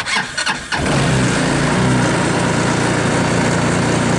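Starter briefly cranks the 2014 Linhai Big Horn 400 UTV's engine, now switched through a newly fitted starter solenoid and key switch with the neutral switch bypassed. The engine catches a little under a second in and then runs steadily.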